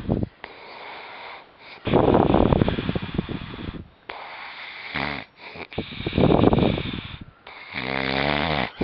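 A man snoring loudly, putting it on as a demonstration: three rattling snores about four seconds apart, the last, near the end, a buzzing, pitched snore, with quieter breaths between.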